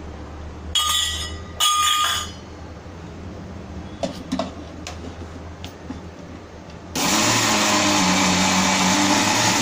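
Two ringing clinks of steel utensils against a stainless steel mixer jar. About seven seconds in, a Preethi mixer grinder starts and runs steadily, grinding soaked rice and dal with dried red chillies into coarse adai batter.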